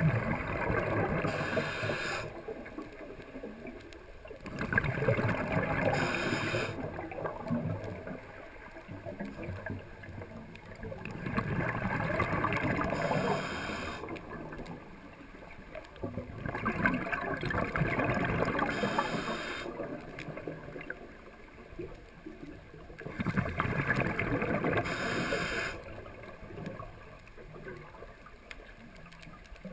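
Scuba diver's exhaled bubbles rushing and gurgling out of the regulator in bursts of two to three seconds, about every six seconds, each breath out followed by a quieter pause for the breath in.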